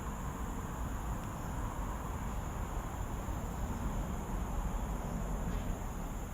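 Steady outdoor ambience: a continuous low rumble under an even hiss, with no distinct events.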